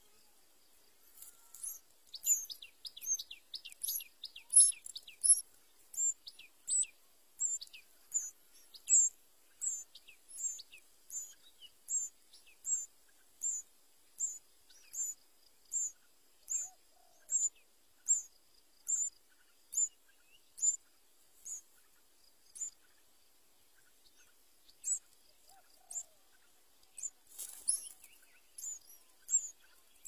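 Sooty-headed bulbul nestlings begging at the nest. A long, steady series of thin, high peeps comes a little more than once a second, with a flurry of quicker, falling notes in the first few seconds.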